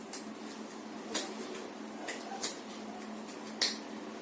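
About five light clicks and knocks of small objects being handled and set down, over a steady low hum.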